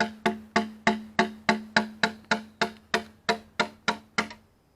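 A rapid, even series of sharp knocks, about three a second, each ringing briefly at one pitch, with a short pause near the end.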